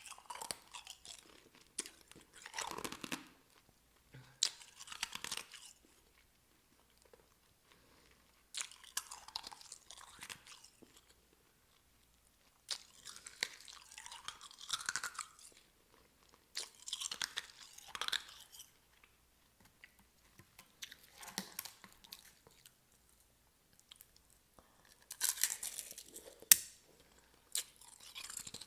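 Solid ice being bitten and chewed close to the microphone: repeated bouts of crunching, each lasting a second or two, with sharp cracks as the ice breaks and short quiet pauses between bites.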